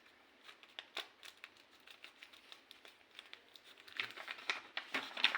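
Plastic packaging crinkling and crackling as it is handled, sparse at first and busier near the end.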